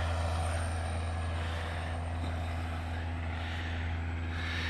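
Tractor engine running steadily with a low drone as it pulls a loaded hay-bale trailer out of the field.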